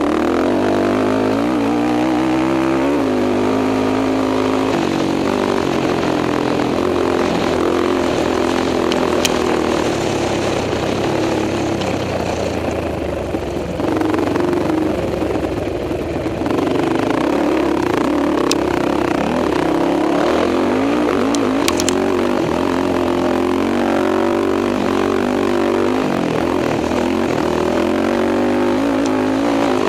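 Racing quad's engine running hard under load, its pitch rising and dropping again and again as the rider works the throttle and gears. A few sharp ticks come through along the way.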